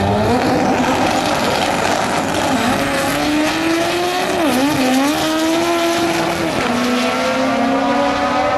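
Drag-racing cars launching from the start line and accelerating hard down the strip, one engine revving high and climbing in pitch, with sharp pitch drops at gear shifts about four and a half and six and a half seconds in.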